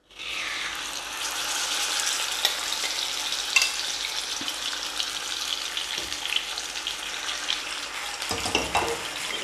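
Marinated mackerel sizzling steadily in hot coconut oil in a frying pan, with a few light clicks of a metal spatula against the pan as the fish is moved.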